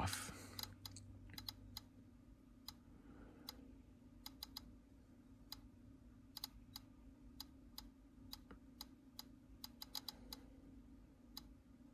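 GQ GMC-800 Geiger counter clicking faintly at irregular, random intervals, a few clicks a second, each click one detected count of radiation from the uranium glass around it.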